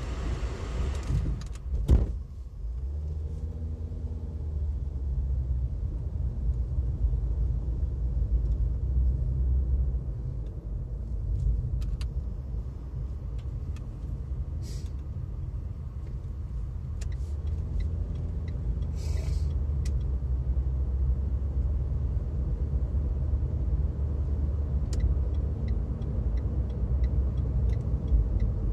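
Engine and road rumble inside a moving car's cabin, with a sharp knock about two seconds in and faint regular ticking near the end.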